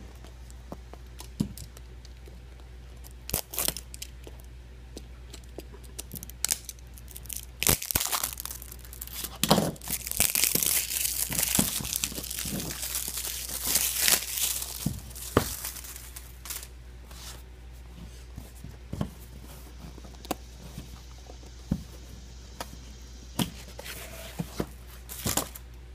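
A cardboard box being unpacked by hand: scattered taps and rustles, and a long stretch of packaging tearing and crinkling in the middle, lasting about eight seconds.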